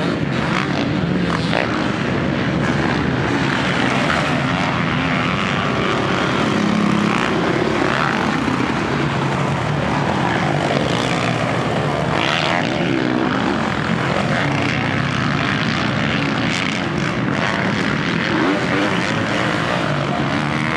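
Several motocross dirt bikes running on a dirt track, their engines revving up and easing off so the pitch keeps rising and falling, with one bike often louder than the rest.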